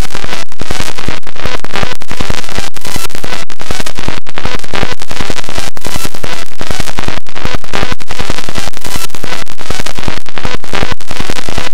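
Heavily clipped, distorted crackling noise at full loudness with no clear tones: the soundtrack of a high-speed CD spin rig, layered and overdriven by video effects.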